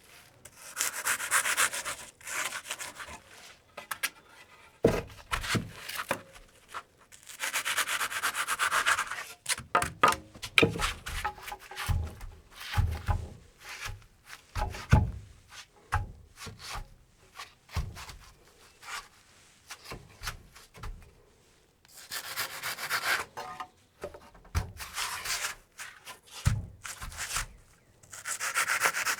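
Hand scraping or rasping in strokes of one to two seconds as high spots are trimmed down so a board will sit flush against the wall channel, with a few dull knocks in between.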